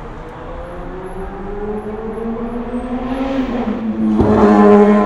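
A road vehicle's engine accelerating along the street, rising slowly in pitch and growing louder. About four seconds in the pitch drops with a gear change, and the engine then pulls on at its loudest.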